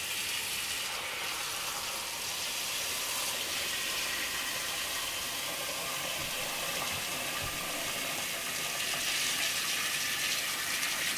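Wall-mounted pot-filler faucet running a stream of cold water into a stainless steel stock pot of bones and vegetables, a steady splashing hiss as the pot fills. It grows a little louder about nine seconds in.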